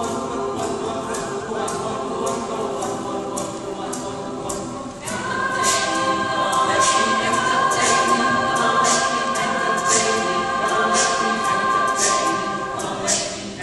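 Choir singing with an orchestra in a large hall, swelling louder about five seconds in and holding sustained chords, over a steady beat of sharp strokes about twice a second.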